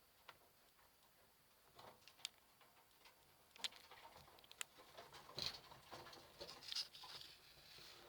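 Faint patter of small clicks and scratches from sugar gliders moving about, sparse at first and busier from about three and a half seconds in.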